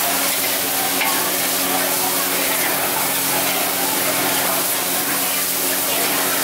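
Fried noodles sizzling in a hot wok while a metal spatula stirs and scrapes them, with a steady low hum underneath.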